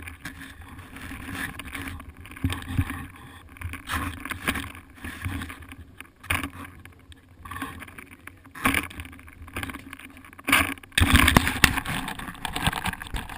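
Handling noise from an action camera being carried and moved about: irregular knocks, bumps and rubbing on its microphone, heaviest from about 11 seconds in, over a steady low hum.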